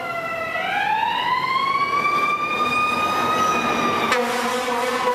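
Fire engine siren wailing, gliding smoothly up in pitch over about two seconds and holding high. About four seconds in it breaks off into a lower, steady horn blast.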